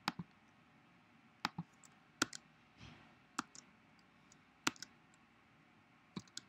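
Scattered single clicks of a computer mouse and keyboard keys as a menu item is chosen and a number is typed in: about eight short, sharp clicks spaced irregularly, some in close pairs.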